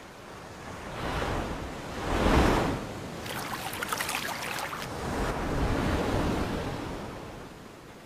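Rushing, surf-like noise that swells to a peak about two seconds in, crackles for a couple of seconds, swells again and fades away near the end.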